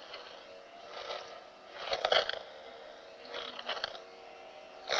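Master Replicas Mace Windu Force FX lightsaber humming steadily while being twirled, its motion sensor setting off swing sounds about four times, the loudest about two seconds in.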